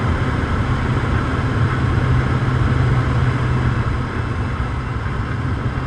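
Skydiving jump plane's engine and propeller running steadily, heard inside the cabin: a loud low hum under an even wash of cabin noise.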